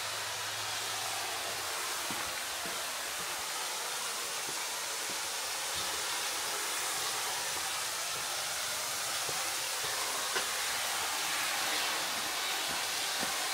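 Steady rush of flowing water, with faint irregular footsteps on the trail.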